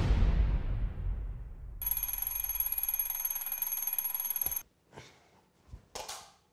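A music cue dies away, then an alarm clock rings with a high, fast-fluttering trill for about three seconds and cuts off abruptly.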